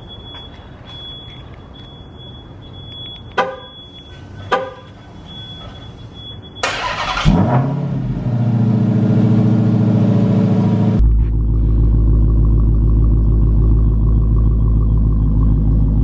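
Two short car-horn chirps, then a 2018 Dodge Challenger SRT Hellcat Widebody's supercharged 6.2-litre HEMI V8 on its stock exhaust starts with a loud flare about seven seconds in and settles into a steady, deep idle.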